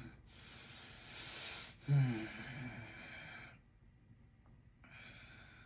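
A man snoring in his sleep: a long noisy breath, then a loud snort about two seconds in that drops in pitch and trails into a noisy exhale. After a short pause, another breath starts near the end.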